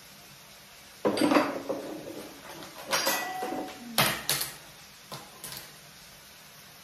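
Kitchen clatter: a burst of knocks and clinks about a second in, followed by several more sharp clinks and knocks, as crockery and kitchen items are handled and an upper cupboard is opened.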